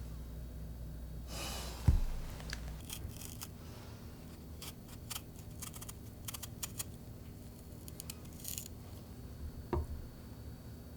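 Kitchen handling sounds: a sharp thump about two seconds in, then scattered light clicks and scrapes, and a second, softer thump near the end.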